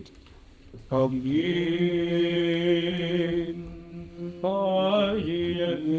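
A male voice chanting a Greek Orthodox (Byzantine) hymn to Saint Nicholas, holding long, steady notes with a short break around the middle.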